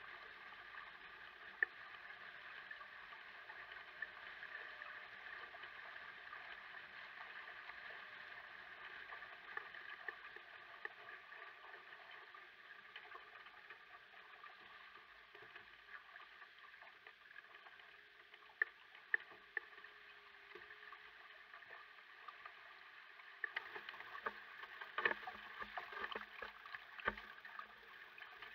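Faint, muffled rush of water along a sailboat's hull as it sails through choppy lake water, with a few sharp splashes or knocks; the splashes come more often near the end.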